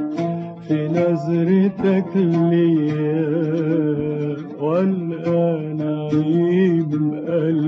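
A man singing long, wavering held notes of an Arabic song in maqam Kurd, over the plucked notes of an oud.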